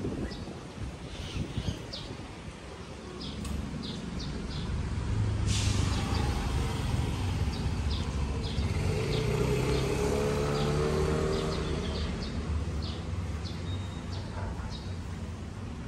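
Small birds chirping in short calls throughout, over a low engine rumble from a vehicle going by, loudest in the middle.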